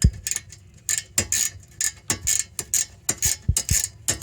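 Long-handled ratchet wrench clicking in quick runs, about three clicks a second, as it backs out a rear brake caliper bolt, with a knock at the start.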